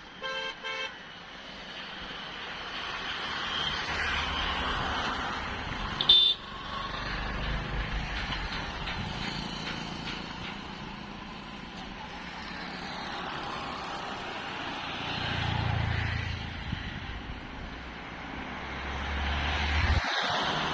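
Road traffic passing, with vehicles swelling past one after another. A horn beeps twice near the start, and a short, loud, high horn toot sounds about six seconds in.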